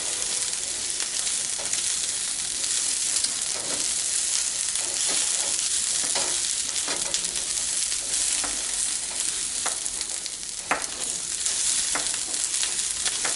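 Onions sizzling in butter in a cast iron skillet, with a steady frying hiss, while a spatula keeps stirring them and scrapes and clicks against the pan now and then.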